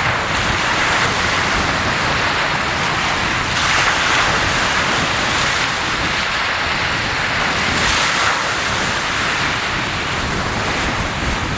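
Okinawan sea waves: a steady rushing wash of surf that swells louder twice, a few seconds apart.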